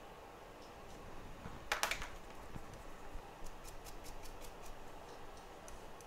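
Small metal hand tool working on a phone circuit board: a short scratchy scrape about two seconds in, then a quick run of light, sharp clicks.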